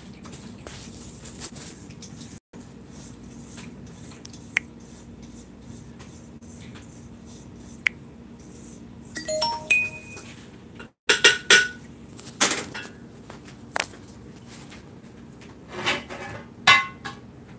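Dishes and a metal bowl being handled, with irregular clinks and clatters that come thickest in the second half. A short run of electronic beeps sounds about nine seconds in.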